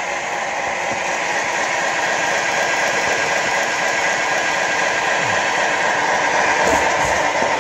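LBSC Vera live steam model locomotive hissing steam steadily, growing slightly louder.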